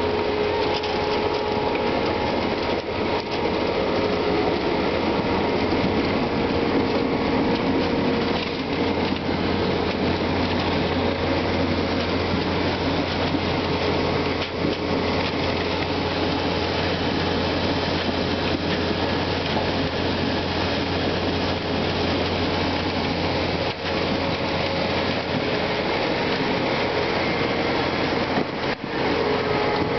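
Ropa Euro-Maus sugar-beet cleaner-loader running steadily: its diesel engine hums under the continuous clatter of beets travelling over the cleaning rollers and up the loading conveyor.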